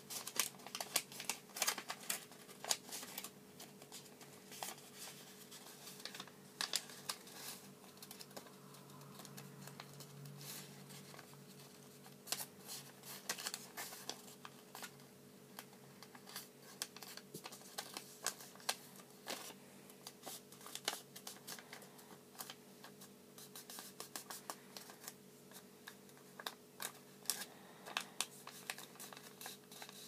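A sheet of origami paper rustling and crackling as it is folded and creased by hand, in irregular clusters of small crisp clicks, over a faint steady hum.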